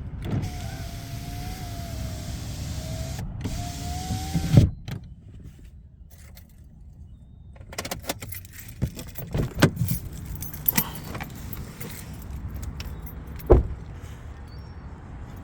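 A small electric motor whines for about four seconds and stops suddenly with a thump. Scattered clicks and knocks follow, with one louder knock near the end.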